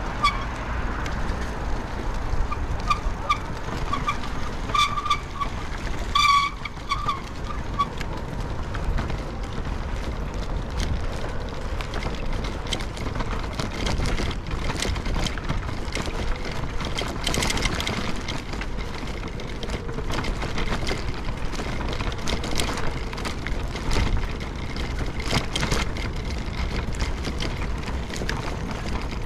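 Wind and road rumble on a GoPro's microphone during a bicycle ride, with frequent small rattles and clicks. In the first seven seconds or so there is a run of short, high squeaks.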